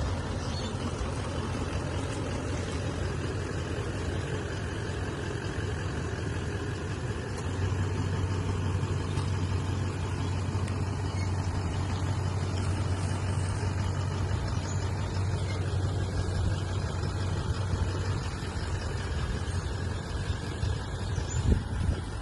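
Car engine running slowly with a steady low hum while the car reverses a boat trailer down a ramp, getting a little louder about a third of the way in; a brief knock near the end.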